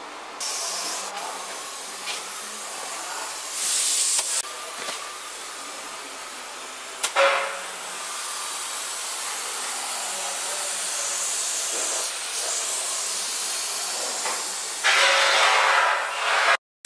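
Compressed-air spray gun hissing steadily as it sprays primer onto the car body, with several louder bursts, the longest near the end.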